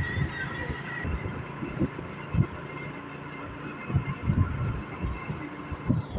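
Rumble of a vehicle ride with a thin steady high whine that stops about a second in, and irregular low thumps and rubbing as the phone knocks against a cloth shawl.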